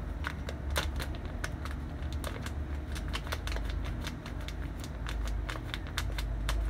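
A paper packet of fried-chicken breading mix being tapped and shaken over a plastic tub, giving quick irregular clicks and rustles as the powder pours out, over a steady low hum.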